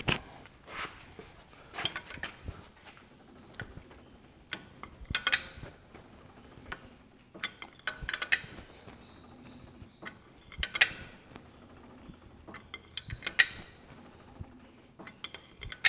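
Irregular metal clicks and clinks as a John Deere 4WD tractor's front wheel hub is turned with a socket bar on a wheel stud, rotating the hub gears to spread fresh oil inside. The sharpest clinks come about ten and thirteen seconds in.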